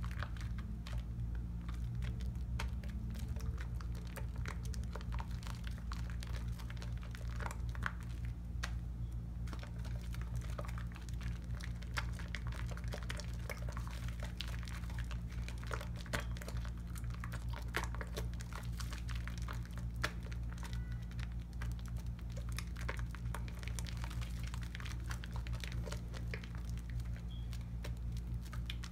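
Soapy hands working a bar of cocoa butter soap into a thick lather: continuous wet squishing with a dense, fine crackling of foam. A steady low hum runs underneath.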